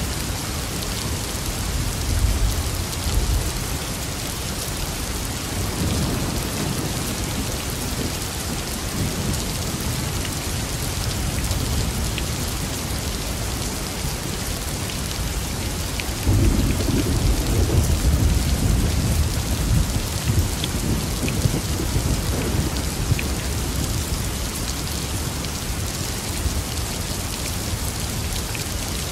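Steady rain hissing, with thunder rumbling low beneath it. A louder roll of thunder starts suddenly a little past halfway and rumbles on for several seconds.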